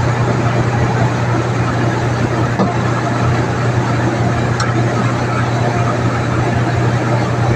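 Steady machine hum, like a motor or engine running, with two faint clicks, one about a third of the way in and one past the middle.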